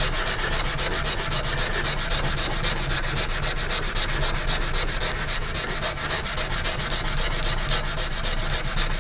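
Sandpaper on a flat backing pad rubbed by hand along a coil-spring steel knife blade, in quick, even back-and-forth strokes: hand sanding the blade's bevels.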